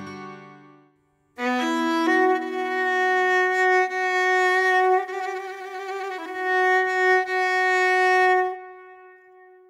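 Background music: a bowed violin playing long sustained notes with vibrato, starting about a second in and fading out near the end.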